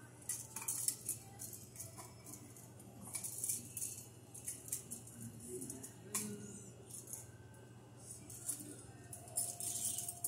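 Small metallic clicks and rattles of a duplex receptacle and its wires being handled and worked into a metal electrical box, coming in irregular clusters. A steady low hum runs underneath.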